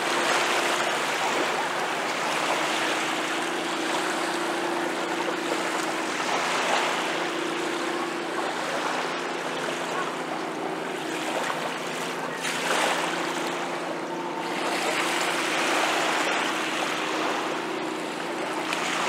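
Small waves lapping and washing on a sandy shore, a steady rushing wash with a few brief swells, over a faint steady low hum.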